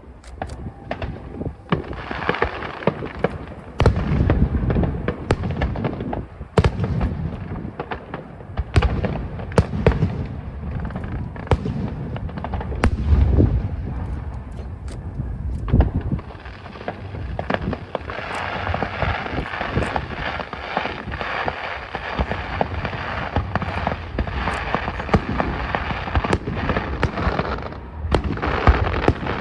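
Aerial fireworks show heard from a distance: a steady run of shell bursts with deep booms and sharp cracks, turning to a denser crackle from about two-thirds of the way through.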